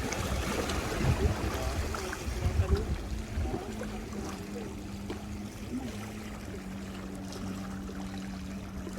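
Water sloshing and lapping along the shore, with wind rumbling on the microphone. A steady low hum joins about three and a half seconds in and holds to the end.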